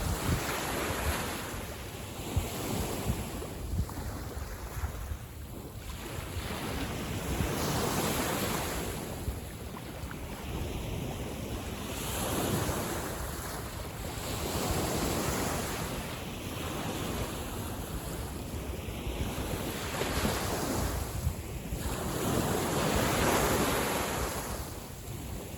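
Small sea waves washing in, the surf swelling and falling away every few seconds, with wind rumbling on the microphone.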